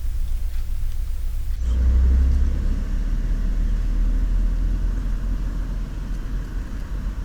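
Heavily amplified room tone of a near-silent apartment: microphone self-noise hiss and low rumble, with a wall clock ticking about once a second. About a second and a half in, the noise changes abruptly to a louder low rumble with less hiss, as the recording switches to another microphone.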